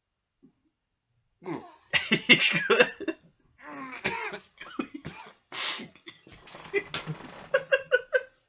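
A man coughing and gagging hard, starting about a second and a half in, as a harsh pinch of mixed dipping tobacco makes him retch and bring up a little spit-up. Another man laughs near the end.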